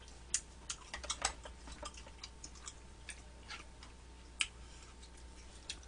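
Chopsticks clicking and tapping against plates and metal trays while eating: irregular sharp clicks, a few of them louder, over a faint low hum.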